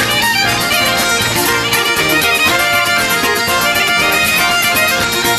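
Scottish traditional music playing at a lively, even beat, laid over the video as a soundtrack.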